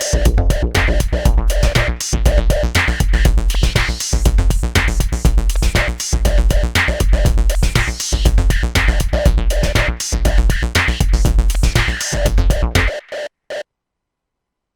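M-Audio Venom synthesizer playing a performance preset: an electronic groove with a programmed drum beat and a repeating bass and synth pattern. It stops suddenly a little after two-thirds of the way in, then silence.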